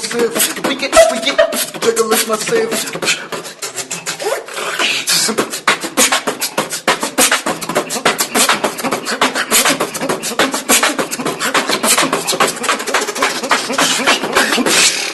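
Beatboxing: rapid, dense vocal percussion clicks and hits, with some hummed or voiced tones in the first few seconds. It cuts off abruptly at the end.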